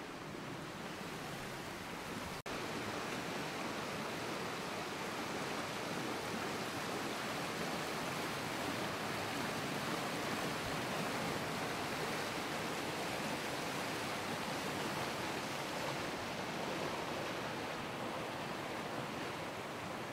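Steady running of a trout river's water, an even rushing noise with no distinct events. A brief dropout about two seconds in, after which it is a little louder.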